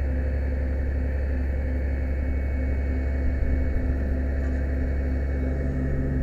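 Fire truck's aerial ladder apparatus running steadily as the ladder rotates: a constant low rumble with an even mechanical hum, from the truck's engine driving the hydraulics.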